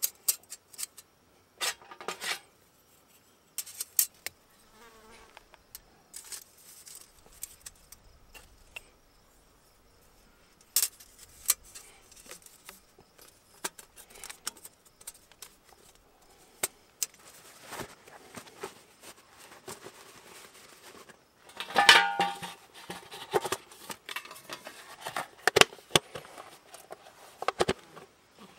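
Hinged metal panels of a Firebox Freestyle folding camp stove clicking and clinking as the stove is folded up and handled, with a denser run of metallic rattling about three-quarters of the way through.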